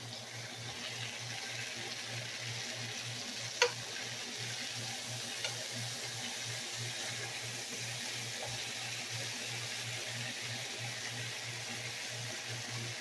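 Beef neck bones sizzling in hot fat in a deep skillet as they are turned with a fork, a steady hiss. A single sharp clink of the fork against the pan about three and a half seconds in.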